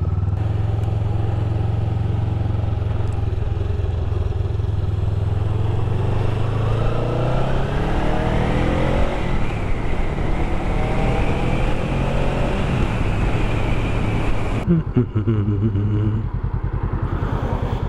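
Honda Rebel 500 parallel-twin engine running under way. The bike pulls away and accelerates, the engine pitch rising and wind noise building with speed, then eases off and slows near the end.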